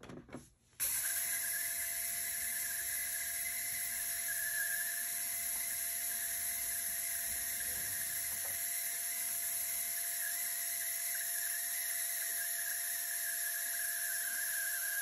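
HumminGuru ultrasonic vinyl record cleaner starting its cleaning cycle after a button press. It comes on about a second in and then runs steadily with a high-pitched whine and hiss.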